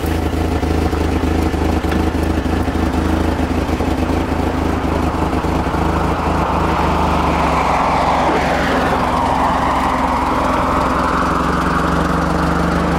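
Lifted Toyota pickup's engine idling in gear in four-wheel-drive low, the truck crawling over rock with no throttle. A steady low engine note, with a louder rushing noise joining from about halfway through.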